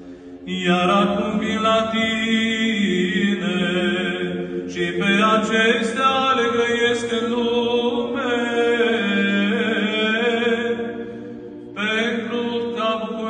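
Orthodox deacon chanting the close of the Gospel reading, a man's voice holding long, ornamented notes in a slow melody, broken by one short pause about eleven seconds in.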